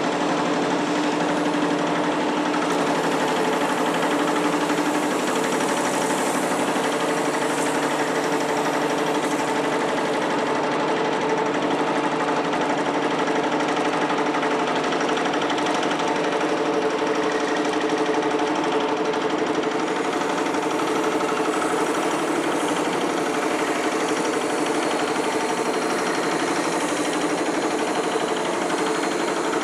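Foundation drilling rig at work, running steadily with an even mechanical drone that carries a few constant hum tones.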